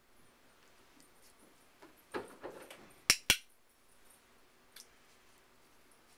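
A dog-training clicker giving one sharp double click (press and release) about three seconds in, marking a puppy's sit for a food reward. A softer rustling sound comes just before it.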